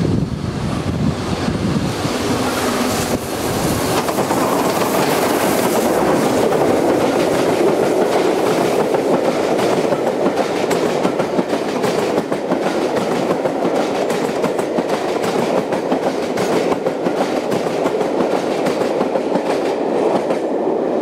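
Steam-hauled passenger train passing at speed: the Peppercorn A1 Pacific 60163 Tornado goes by early on, then its long rake of coaches follows. The coaches make a steady rolling noise, with many sharp clicks as the wheels run over the rail joints.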